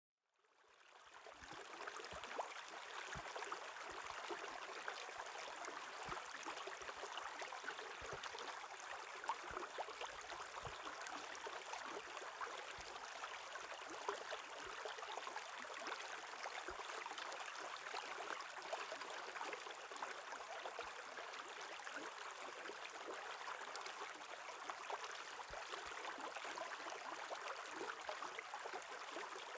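Shallow stream running over stones beneath a shelf of ice: a steady rush and burble of water with small scattered plinks. It fades in over the first second.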